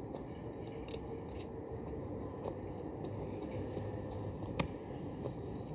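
Outdoor background ambience: a steady low hiss with a few faint scattered clicks, the sharpest about four and a half seconds in.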